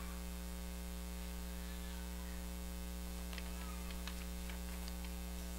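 Steady electrical mains hum: a low buzz with a stack of overtones over faint hiss, with a few faint small ticks about three to four seconds in.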